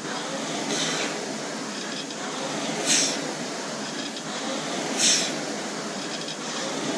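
Concept2 indoor rowing machine's air-resistance flywheel whirring steadily under hard rowing, with a short sharp hiss once per stroke, about every two seconds.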